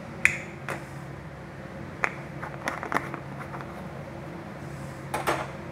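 A low steady hum with a few short, light clicks and knocks.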